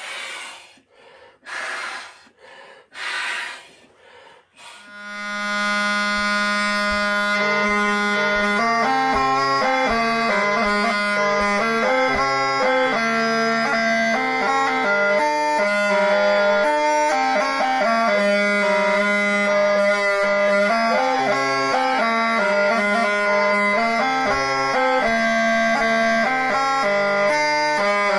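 Reconstructed medieval Cornish double-chanter bagpipe, modelled on a church carving. A few short breathy puffs come first, then about five seconds in the pipes start and play a tune. One chanter holds a steady low note under the moving melody of the other, giving the double chanter's harmonies.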